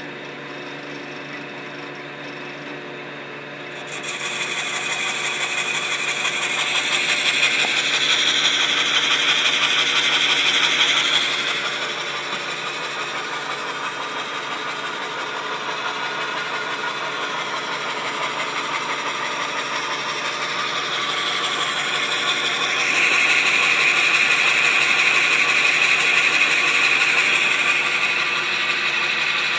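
Hercus metal lathe running steadily, turning maple stock. About four seconds in, a tool starts cutting the wood with a rough hiss over the motor hum. The cutting is loudest around eight to eleven seconds and again over the last few seconds.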